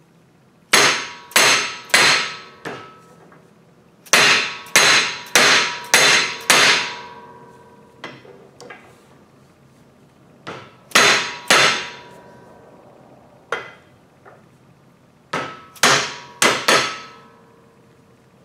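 Orange-headed mallet striking a steel tube driver to drive a bearing onto a cement mixer's spindle shaft. Sharp metallic blows come in groups of three to five, about two a second, each with a short ring, separated by pauses.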